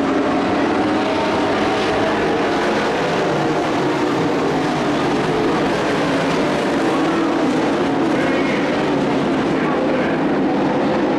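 Engines of a pack of dirt-track race trucks running at racing speed together, a loud steady drone whose pitch sags a little mid-way and climbs again near the end.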